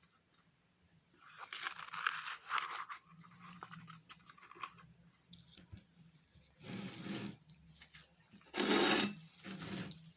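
A spoon scooping baking soda powder, with gritty scraping and crunching in several separate strokes. The loudest stroke comes near the end.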